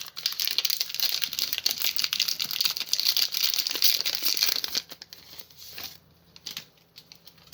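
Foil Pokémon booster pack wrapper crinkling as it is handled and opened, dense crackling for about five seconds, then a few lighter rustles before it goes quiet.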